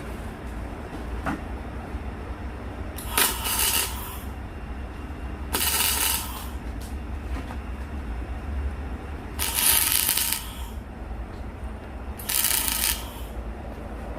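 Four short bursts of a grinder biting into the leaf-spring steel of a log-splitter axe blade, each about a second long, as the edge is sharpened.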